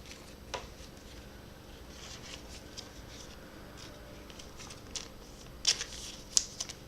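Trading cards being handled and slid against each other: soft scratchy rustling with small clicks, and a couple of sharper card snaps near the end.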